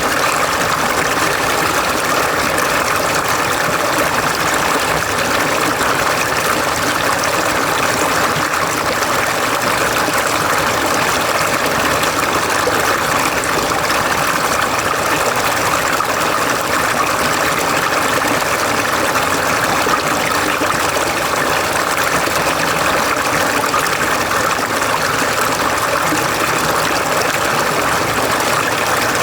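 Mountain valley stream flowing: a steady, even rush of running water with no pauses.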